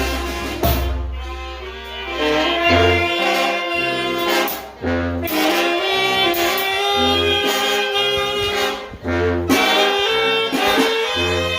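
Mexican brass band (banda de viento) playing, with saxophones and trumpets carrying a melody in held notes over a steady low bass line.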